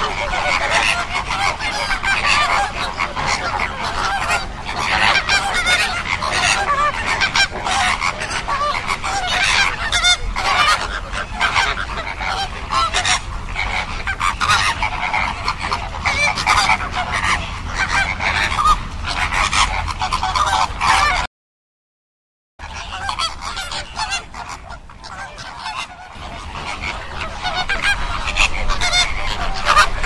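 A large flock of flamingos honking, many goose-like calls overlapping. The sound cuts out completely for about a second around two-thirds of the way through, then comes back quieter and builds up again near the end.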